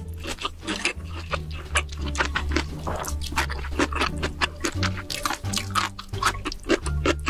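Close-miked mukbang eating sounds: wet chewing, smacking and slurping of spicy noodles and pork belly, with sharp mouth clicks, over background music with a steady bass line.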